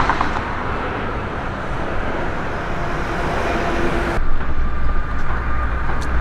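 Steady outdoor city noise, a low rumble like passing road traffic with a faint hum over it. The higher hiss drops away abruptly about four seconds in.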